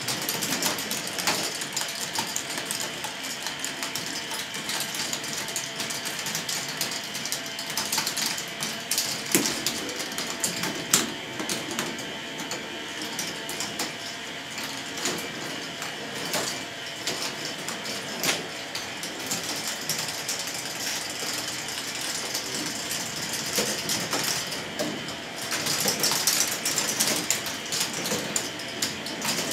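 K'nex ball machine running: motor-driven lifts hum steadily while plastic balls roll and clack along the plastic tracks and elements in a constant patter of small clicks, busier for a few seconds near the end.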